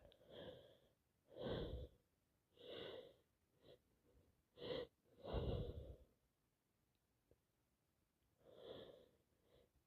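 A person's sneezing fit: sharp gasping breaths and sneezes, about eight short bursts with pauses between them, the two loudest about a second and a half in and about five and a half seconds in.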